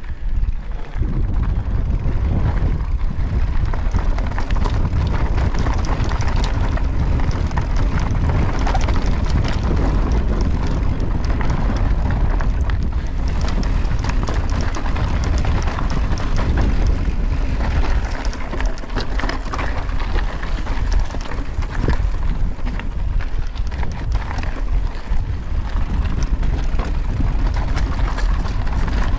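Wind rushing over an action camera's microphone as a mountain bike rides a rough trail, with a steady stream of small clicks and rattles from the tyres and bike over the ground.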